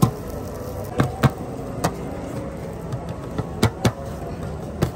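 Roadside food-stall background: a steady low rumble with several sharp, irregularly spaced clacks from cooking work at the griddle and dough tray.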